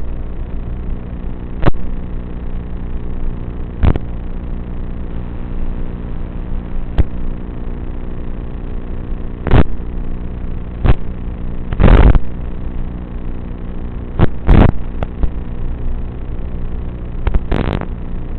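Emax Tinyhawk 3 tiny-whoop drone's brushless motors humming steadily in flight, with about ten short, loud thumps scattered through it.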